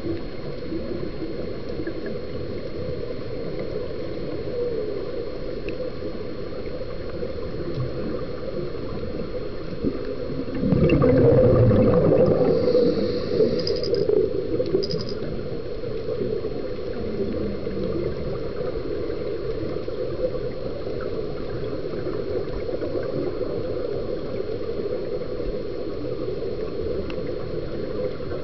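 Underwater ambience heard through a scuba diver's camera housing: a steady low wash with a faint thin high whine, and a louder burst of bubbling about ten seconds in, typical of the diver exhaling through the regulator.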